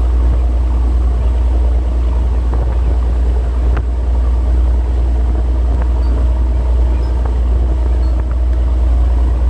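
Steady low engine rumble of a moving vehicle, unchanging throughout.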